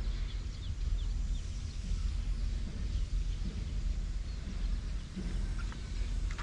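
Wind rumbling steadily on the microphone, with a few faint, brief bird chirps above it.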